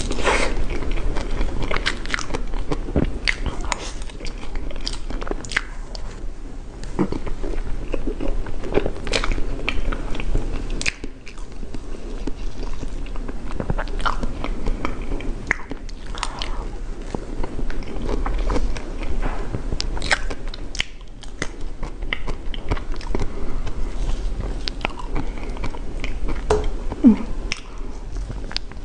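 Close-miked biting and chewing of a fruit-shaped dessert, with irregular crisp clicks and wet mouth sounds.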